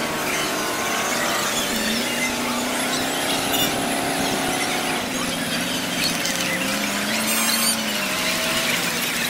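Street-parade sound sped up to four times normal speed: passing vehicles and the crowd turned into a steady jumble of high, squeaky chirps and gliding whines.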